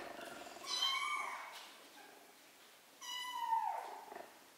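Three-week-old kittens meowing: two short mews, one about a second in and a louder one about three seconds in that slides down in pitch as it fades.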